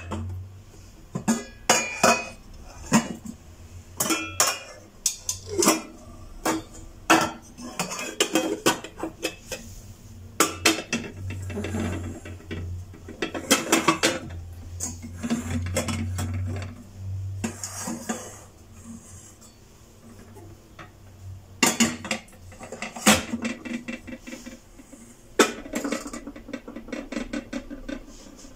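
Irregular clinks and knocks of hard objects being handled, coming in busy clusters with short pauses between them.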